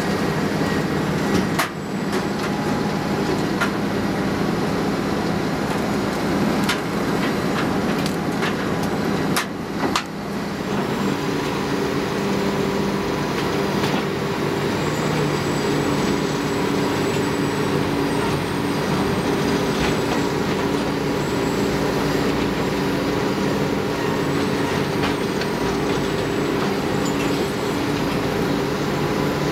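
Doppstadt DW-3060 slow-speed shredder crushing tree stumps, its diesel engine droning under load alongside the excavator, with sharp knocks and cracks of wood breaking in the first ten seconds. From about ten seconds in the machine noise turns into a steadier hum with clear, even tones.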